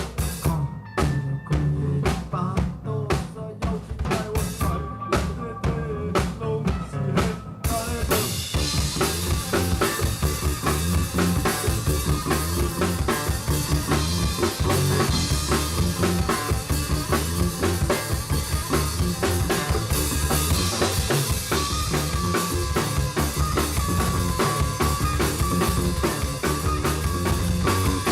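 Live band playing, led by drum kit and bass. The first seven seconds or so are sparse, punctuated hits with gaps between them, and then the full band comes in playing continuously.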